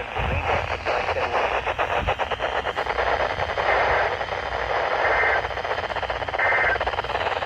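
Weak NOAA Weather Radio signal through a receiver: static hiss with dense crackling for the first few seconds, then two short high tone bursts about a second apart near the end.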